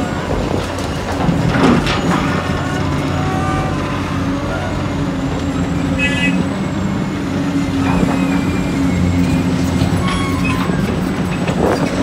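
Heavy diesel engine of earthmoving machinery running steadily under load, with a couple of short sharp noises, one about two seconds in and one near the end.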